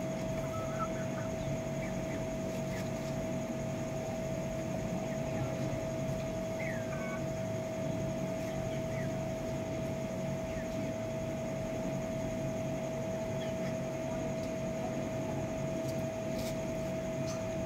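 Steady machine hum with a constant mid-pitched tone, like a fan or motor running, with a few faint short chirps from birds over it.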